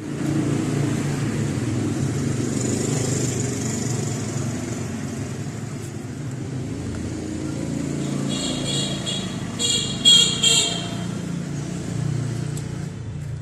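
A motor vehicle's engine running steadily, with a few short high-pitched toots between about eight and eleven seconds in.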